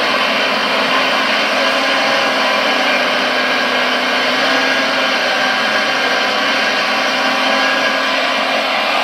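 Premacon 1:14.5 Liebherr R956 radio-controlled excavator working: a steady mechanical whir from its hydraulics and motors, mixed with its sound module's simulated diesel engine.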